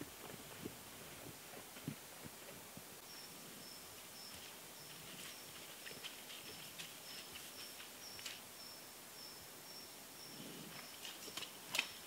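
Brown bear foraging and walking through forest undergrowth: soft thuds and rustles of its feet and snout, with a few sharp snaps near the end, the loudest just before the end. From about three seconds in, a bird repeats a short high note about twice a second.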